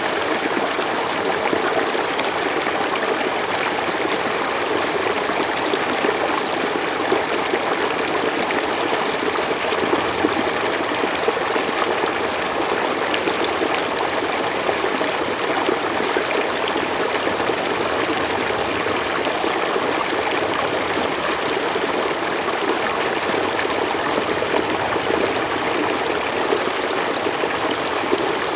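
A stream flowing over rocks, its water rushing and splashing in a steady, even sound.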